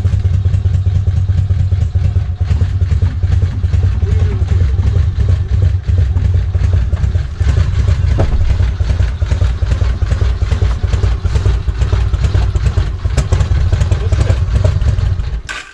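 Yamaha XV1600 Road Star's air-cooled V-twin engine running steadily at low revs, then stopping suddenly near the end.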